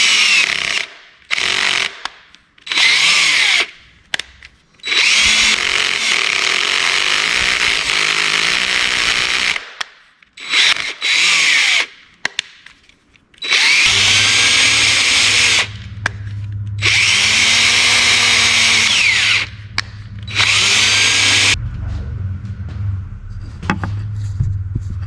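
Power drill drilling out a broken muffler bolt in a motorcycle cylinder head, run in about eight stop-start bursts with the speed rising and falling, the longest about five seconds. After the last burst, about 21 seconds in, a quieter low steady hum is left.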